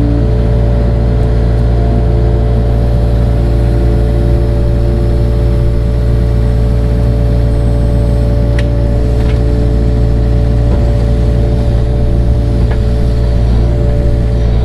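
Engine of an earth-moving machine running steadily while it works close to a house and fence, a loud even drone with a few faint clicks partway through.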